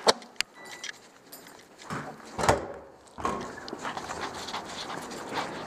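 A couple of sharp clicks, then a door thumps open about two and a half seconds in, after which the sound opens out into a steady outdoor background.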